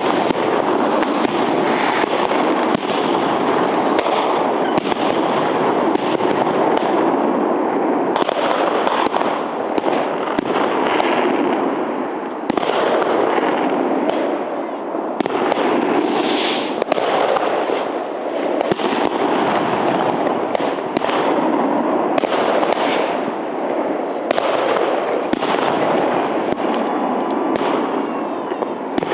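Many fireworks going off at once: a dense, unbroken crackle and rumble with sharp bangs and cracks overlapping throughout, starting loud right at the beginning.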